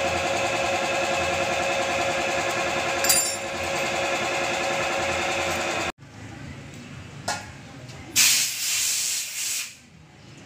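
A machine runs steadily with a rapid buzz and stops abruptly about six seconds in. After that there is a single knock, then a hiss lasting about a second and a half.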